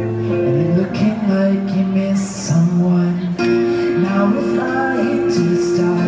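A street musician playing a digital piano through a small amplifier, with a sung melody held and sliding over the chords.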